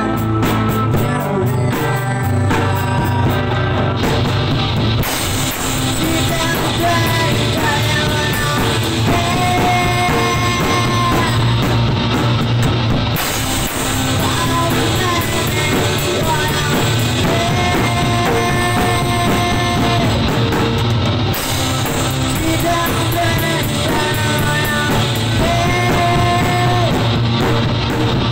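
Rock band playing live in a rehearsal room: electric guitar, bass guitar and drum kit, with a singer's voice over them. The music is loud and keeps going throughout.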